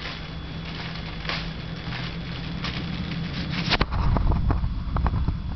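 A low steady hum with light crackle. From about four seconds in, heavy rumbling and sharp knocks of wind and handling on the microphone drown it out as the camera is moved.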